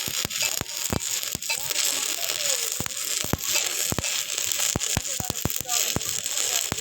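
Electric arc welding: a steady high crackling hiss from the arc, broken by irregular sharp pops and spatter.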